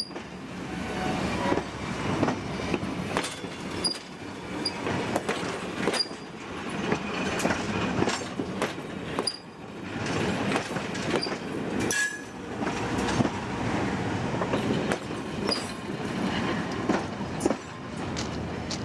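Train rolling past, its cars clanking and clattering over the rails, with brief high squeals from the wheels now and then.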